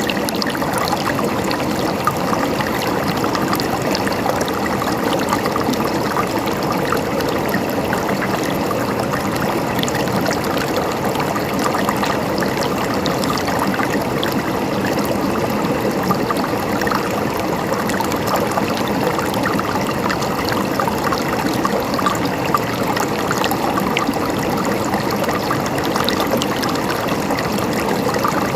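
River water flowing over rocks: a steady rushing with bubbling and trickling splashes, constant throughout.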